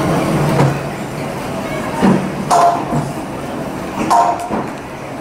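Sheffield Corporation Tramways double-deck electric tram No 264 running on street rails: a steady low hum with rumbling, broken by a few brief clattering knocks.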